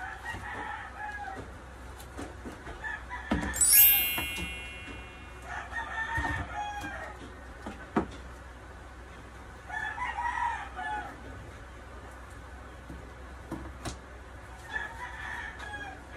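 Roosters crowing, several crows a few seconds apart, with a loud shrill pitched sound about four seconds in. Scattered clicks and crinkles come from plastic wallpaper sticker being handled on a table.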